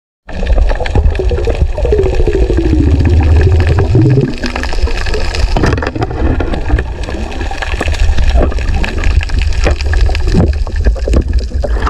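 Muffled underwater rushing and gurgling picked up by a camera in a waterproof housing during a night dive, with a falling gurgling tone in the first few seconds and scattered knocks and clicks.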